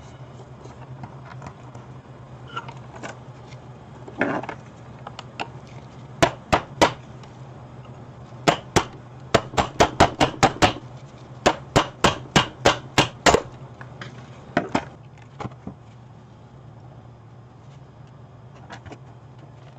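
Sharp taps and clicks of small hand tools, a soldering iron and tweezers, against an LED circuit board as a dead LED is worked loose: a few scattered taps, then a quick run of two to three taps a second through the middle, thinning out toward the end. A steady low hum sits underneath.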